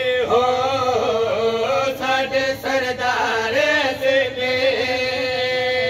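Men chanting a Punjabi qasida together in a drawn-out melody, one steady note held beneath the bending vocal line.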